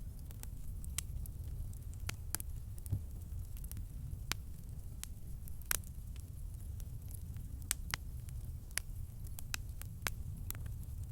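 Wood campfire crackling: irregular sharp pops and snaps, one or two a second, over a steady low rumble.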